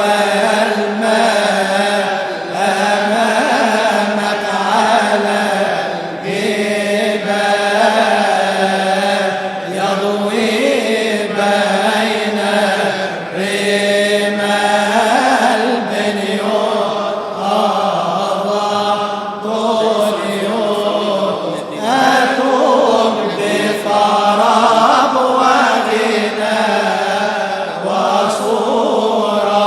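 A man's voice chanting a Coptic Arabic praise hymn (madih) in long, drawn-out melodic lines.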